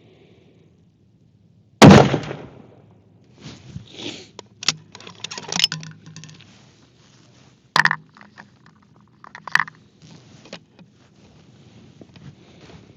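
A single shot from a Ruger Precision Rifle in .308 about two seconds in, a sharp crack that dies away over half a second. It is followed by a run of lighter clicks and scrapes, as of the bolt being worked to eject the case and chamber the next round.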